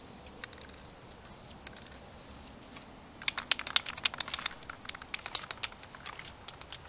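Footsteps in rubber boots crunching through dry fallen leaves on grass: a dense run of crackling clicks starting about three seconds in.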